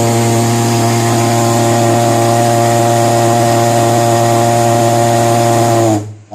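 SP Giant thermal fogger's pulse-jet engine running at a steady, even pitch, now running properly after the starting fault was repaired. It shuts off about six seconds in, the pitch dropping slightly as it dies.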